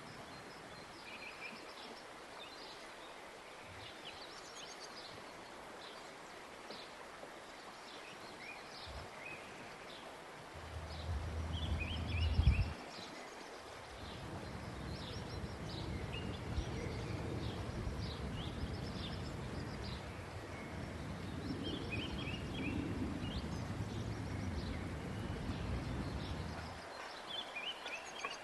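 Small birds chirping on and off. Under them runs a low, muffled rubbing noise: a louder stretch a little before halfway, then a longer steady stretch that stops shortly before the end.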